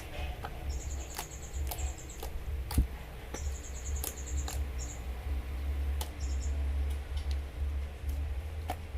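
Homemade slime being squeezed and kneaded by hand, giving scattered sharp clicks and pops, with one louder pop a little under three seconds in. A high, rapid trill repeats in short bursts in the background.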